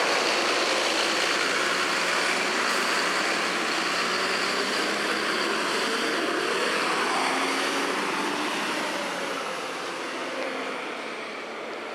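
2002 Blue Bird CS transit bus on the move, its Cummins ISC diesel and Allison B400R automatic transmission running under a steady rush of road noise. A rising whine comes in a little past halfway, and the sound then grows quieter toward the end.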